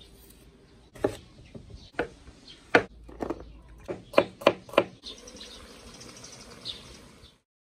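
Seven sharp knocks at uneven intervals, then a faint steady hiss with a few faint chirps that cuts off abruptly near the end.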